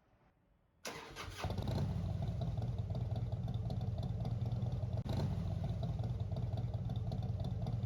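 A motor starts about a second in, rises over half a second, and then runs steadily with a strong low hum.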